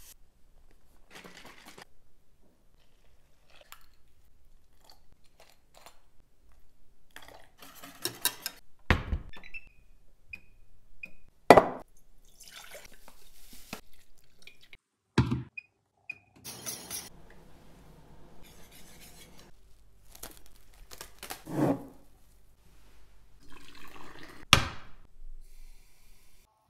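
Kitchen preparation sounds: a dry ingredient and liquids poured into stainless steel pots and a frying pan, with rustling and several sharp clanks and knocks of utensils against the cookware. A few short high beeps are heard between them.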